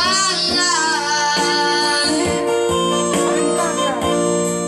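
Boys' duet singing into a microphone over electronic keyboard accompaniment played through a loudspeaker, with a long held sung note in the first half.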